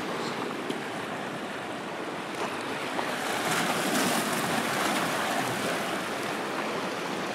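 Small sea waves washing over rocks at the shoreline, a steady rush of surf that swells a little louder about halfway through.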